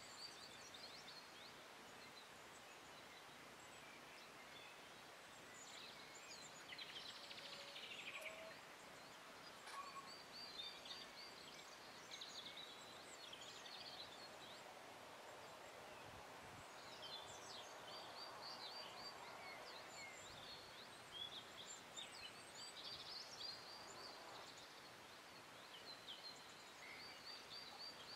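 Faint small-bird chirping in short, recurring runs over a low steady outdoor hiss.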